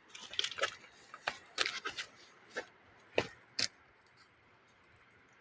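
A quick, irregular series of sharp clicks and knocks, about a dozen, that stop a little under four seconds in.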